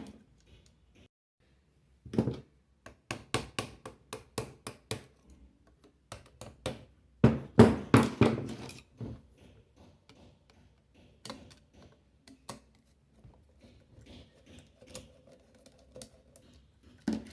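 Screwdriver tapping and clicking on the housing screws of an electric fan motor as they are loosened and taken out: irregular sharp metal clicks and knocks, busiest near the middle and sparser toward the end.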